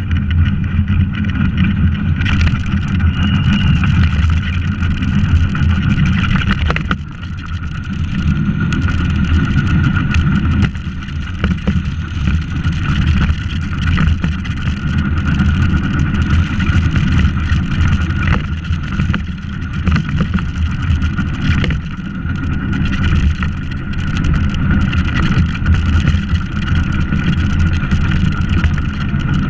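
A gravity-powered soapbox cart rolling fast downhill on asphalt: a steady, loud rumble of wheels and rushing air, with a few knocks as it goes over bumps in the road.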